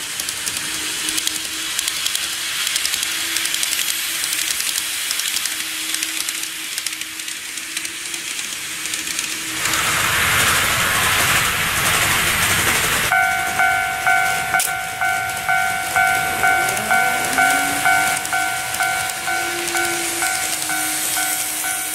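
An N-scale model train running, a steady hiss of wheels on track with a faint motor hum, swelling into a louder rush of running noise. Then a level crossing alarm starts up, a Japanese-style clanging bell at about two strokes a second, as a model train passes over the crossing.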